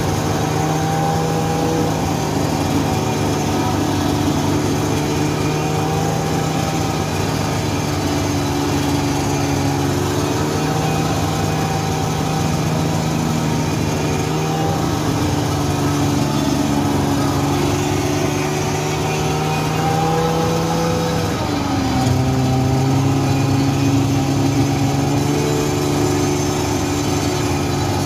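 Snowmobile engine running while being ridden, its pitch rising and falling gently with the throttle; the note changes about three-quarters of the way through.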